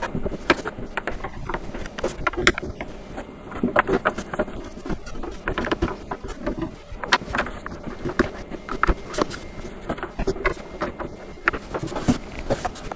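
Hands handling a plastic highchair frame and threading bolts into it by hand: irregular clicks, taps and knocks of plastic and metal parts.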